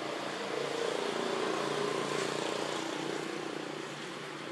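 A distant motor engine running past, a low hum that swells and then slowly fades.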